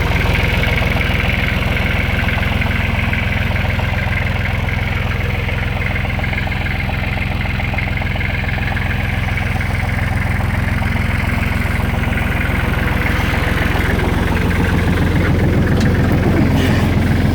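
Kubota L39 tractor loader backhoe's four-cylinder diesel engine idling steadily, a few seconds after a cold start in below-freezing weather. It gets slightly louder near the end.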